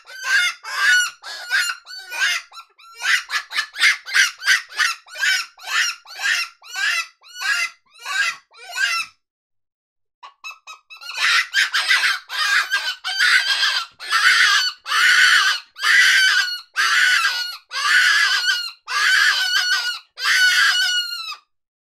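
Predator hand call blown to imitate prey in distress: a run of short squealing cries, about two a second, then after a brief pause a louder run of longer cries, each falling off at its end.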